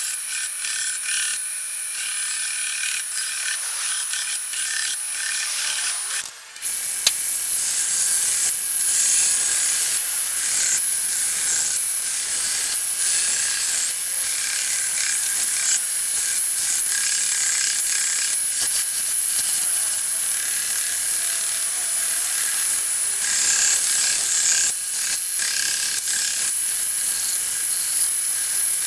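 Benchtop belt and disc sander running steadily with a high whine while pallet wood is held against the abrasive. The sound cuts off briefly about six seconds in, then resumes.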